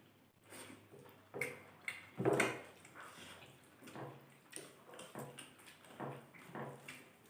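Close-up eating sounds of people eating a rice meal: soft, irregular chewing and mouth smacks about once or twice a second, with a louder short mouth sound about two seconds in.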